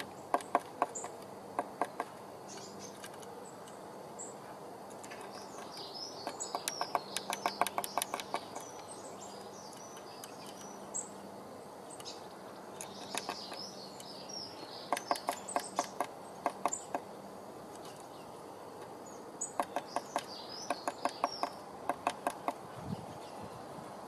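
Blue tit pecking at the wooden entrance hole of a nest box: four bursts of rapid sharp taps several seconds apart, with high chirping bird calls over them.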